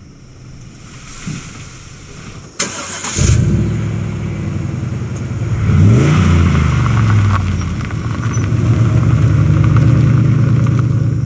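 A sharp click, then a car engine starts about three seconds in. It revs up and falls back, then runs steadily.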